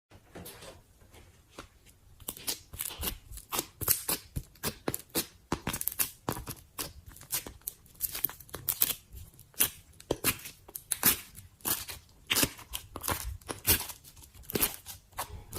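Slime being poked, squished and stretched by hand, giving irregular sticky clicks, pops and crackles. The sounds are faint and sparse at first and come thick and uneven from about two seconds in.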